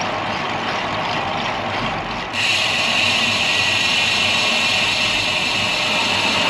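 Wind rushing over the microphone of a camera on a moving bicycle, a steady loud noise. About two seconds in it changes suddenly and turns hissier.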